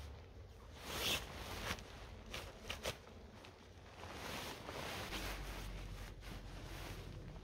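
Nylon tent fabric swishing and rustling in bursts as a dome tent is handled and a pole is worked through it, with two sharp clicks a little before three seconds in.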